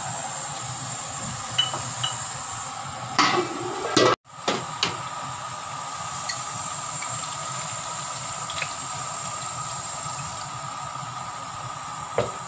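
Steady hiss from a gas stove under a wok of simmering chicken broth, with a few sharp clinks and knocks of a glass bottle and utensils against the wok and counter, loudest a little past three seconds in.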